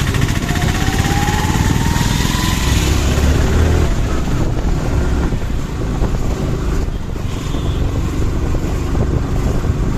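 Vehicle engine running steadily with road noise, a continuous low rumble. A faint whine rises in pitch during the first couple of seconds.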